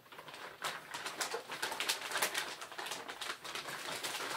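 Clear plastic packaging crinkling and rustling as an exhaust pipe is pulled out of it and unwrapped, a dense run of irregular crackles that grows denser toward the end.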